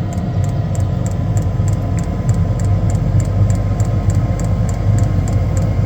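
Diesel air heater running at maximum power just after ignition, its combustion fan spooling up with a steady low hum. A fast, even ticking, about five a second, runs over it.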